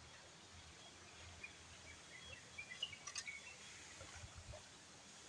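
Faint outdoor ambience with a few faint bird chirps around the middle, a click a little after, and soft low knocks from handling near the end.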